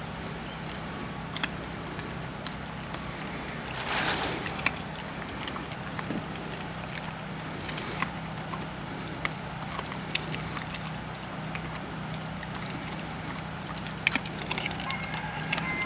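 Outdoor ambience: a steady low hum with faint bird chirps and scattered light clicks, a short rushing sound about four seconds in, and a quick run of clicks near the end.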